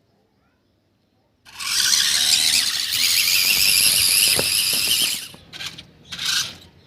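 A loud, high-pitched squeal starts about a second and a half in and holds for nearly four seconds. Three short bursts of the same squeal follow.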